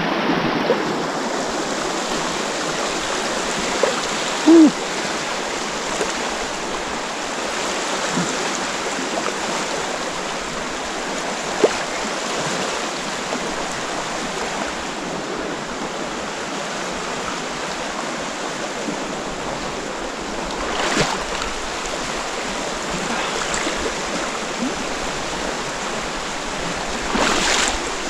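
The Opalescent River rushing steadily over shallow rocks, with a few splashes from wading steps, one about two-thirds of the way in and more near the end. A short low hum sounds about four or five seconds in.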